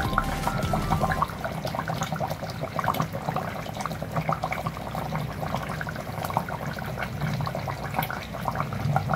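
Coconut milk bubbling at a simmer in a pot of fish pieces, a dense, irregular run of small pops and blips.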